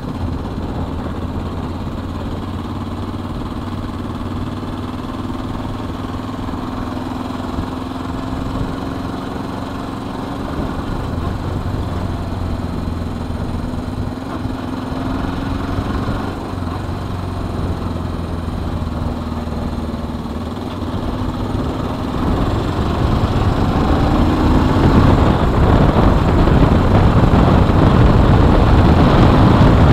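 Suzuki GS 500E's air-cooled parallel-twin engine running under way, its pitch drifting with the throttle. About two-thirds of the way through it grows louder as the bike speeds up, with wind rush on the microphone rising.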